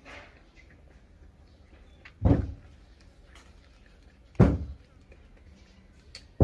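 Three heavy, dull thumps about two seconds apart, each dying away quickly, over faint background noise.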